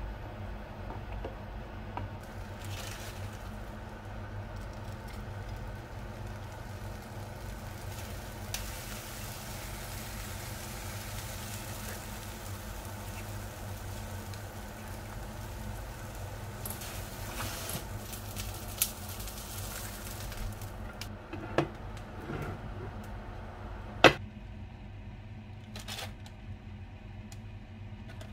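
Eggs frying in a pan with a steady sizzle over a low steady hum. A few sharp knocks of utensils follow, the loudest near the end.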